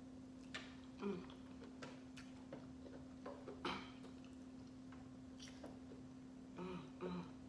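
Faint, scattered clicks and small knocks from eating a seafood boil: hands handling crab legs and food in a metal pan, and mouth sounds. A steady low hum runs underneath.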